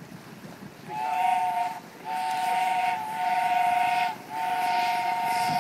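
A boat's whistle sounding a steady two-note chord in three blasts: a short one about a second in, then two long ones, with wind and water noise underneath.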